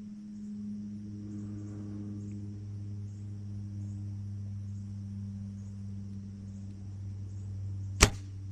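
A steady low hum and faint, regular insect chirping. About eight seconds in comes a single sharp crack: a compound bow being shot.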